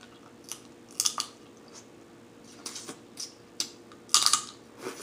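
Close-miked eating of snow crab leg meat: a string of short, sharp mouth smacks, sucks and clicks as the meat is pulled from the shell and chewed, the loudest cluster about four seconds in.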